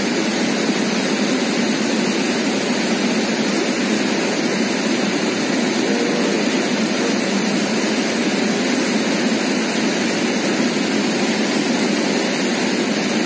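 River water rushing over rocks, a steady even rush with no breaks.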